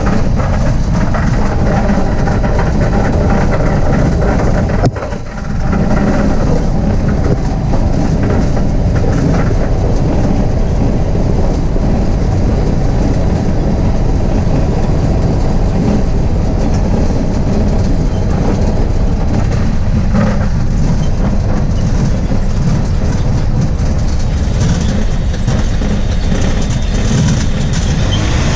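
Aeroprakt A-22 light aircraft's propeller engine running, a loud, steady drone heard from inside the cabin, with a brief dip in loudness about five seconds in.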